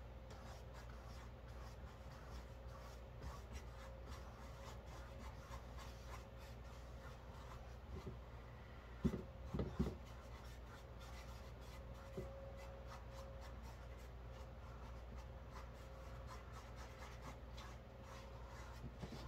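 Paintbrushes stroking acrylic paint onto canvas: faint, soft scratchy brushing, with a couple of soft knocks about halfway through, over a low steady hum.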